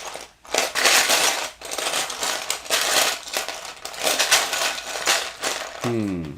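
Hands rummaging through a pile of loose Mega Construx plastic building pieces: a continuous clattering rattle of many small clicks, pausing briefly a few times. A short falling hum of a voice comes near the end.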